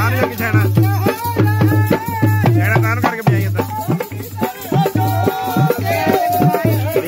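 Loud dance music: a wavering, ornamented sung vocal line over a steady bass beat of about two pulses a second, with jingling, rattling percussion on top.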